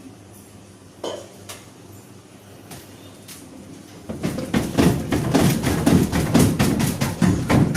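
Washing machine running with a low hum and one knock, then from about four seconds in loud, rapid knocking and clattering, as of an overloaded, unbalanced drum banging during the spin.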